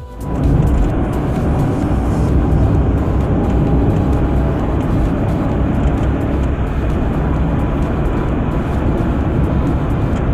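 Steady low rumble of road and engine noise from a moving car.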